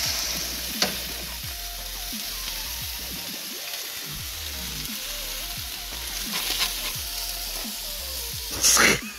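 Food frying in a pan of hot oil: a steady sizzle, with a sharp pop about a second in and louder oil spitting near the end.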